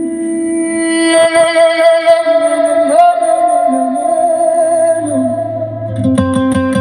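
Music: a held, wavering guitar line, with a deep bass note coming in about two-thirds of the way through and quick plucked notes near the end.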